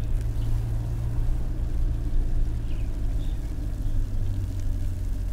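A steady low rumble with a few faint, short high chirps.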